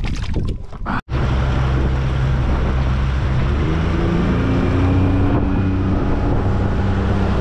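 Small boat's outboard motor running under way, with wind buffeting the microphone and water rushing past the hull. A brief splashy stretch ends in a sudden cut-out about a second in, and the steady motor and wind noise follow.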